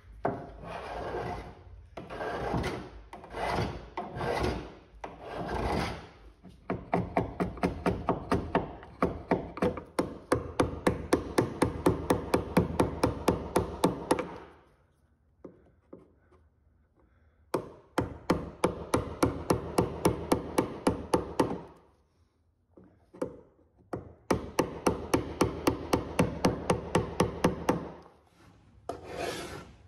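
A hand rasp filing the wooden outer stem of a small boat hull, shaping it down to the keel's profile. A few slow strokes come first, then runs of quick, even rasping strokes, about four a second, broken by short pauses.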